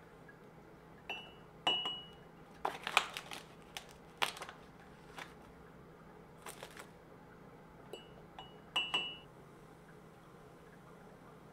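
A spoon clinking against a ceramic mug as hot chocolate powder is spooned in, each clink ringing briefly, with soft rustles of the paper pouch in between. There are two or three clinks about a second in and another few near the end.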